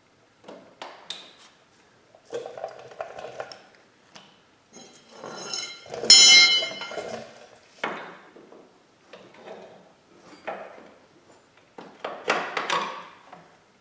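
Snap ring pliers and a steel retaining ring clicking and clinking against the ATV's trailing arm as the ring is worked into place. About six seconds in there is one loud ringing metallic ping.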